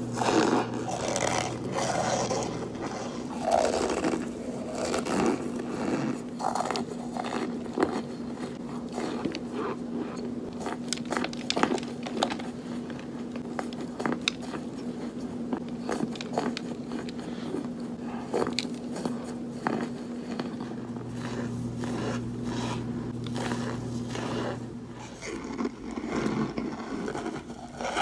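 Biting and crunching of crumbly, powdery white chunks being eaten close to the microphone, many short crackly snaps throughout. A steady low hum runs underneath.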